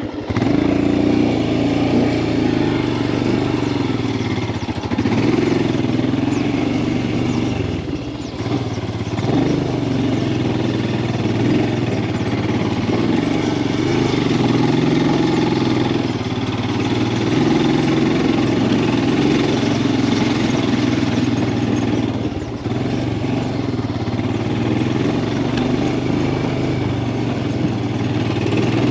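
Royal Enfield Himalayan 411's single-cylinder engine running while riding, heard with road and wind noise. The engine note eases off briefly about eight seconds in and again about twenty-two seconds in, then picks up again.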